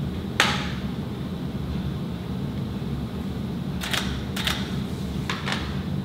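DSLR camera's shutter clicking: one sharp click about half a second in, then a cluster of short clicks about four to five and a half seconds in, over a low steady hum.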